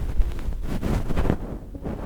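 Close rubbing and scraping on a binaural microphone's ear for ear-cleaning ASMR: an irregular scratchy brushing over a heavy low rumble.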